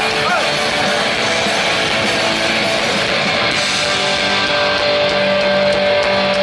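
Punk rock band playing live: loud, continuous guitar-driven rock with held notes.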